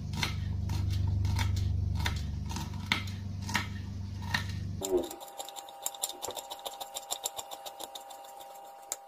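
Kitchen knife chopping fresh parsley on a plastic cutting board: separate cuts tapping on the board at first, over a low hum, then a quicker, even run of chops, about four a second, from about five seconds in.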